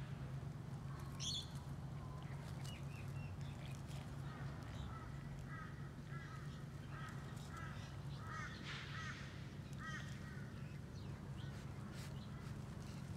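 Birds calling outdoors: a run of short, repeated chirps through the middle few seconds, with a brief higher call about a second in, over a steady low hum.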